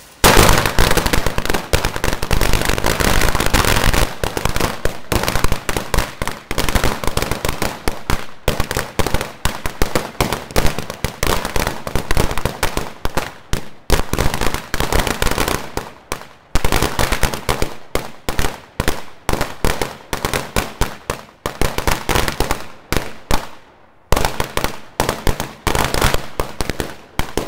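A long string of firecrackers going off on the ground: loud, rapid sharp bangs that start suddenly, packed tightly at first, then coming in uneven rattling clusters with brief lulls now and then.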